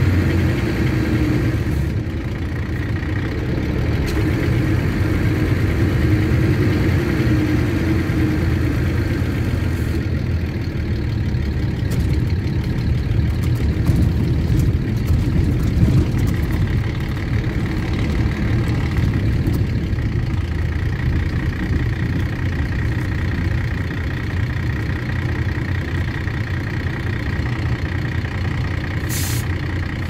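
Mercedes-Benz O-400RSD bus chassis's diesel engine running steadily at idle. There is a brief hiss near the end.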